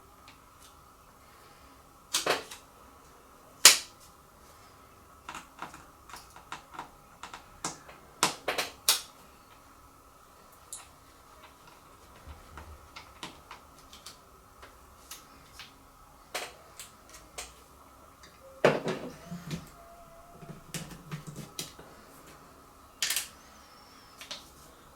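Irregular small clicks and taps of a precision screwdriver and tiny screws being worked on and set down against a laptop's case and the work surface. The sharpest click comes about four seconds in, with quicker runs of taps around eight seconds and again near nineteen seconds.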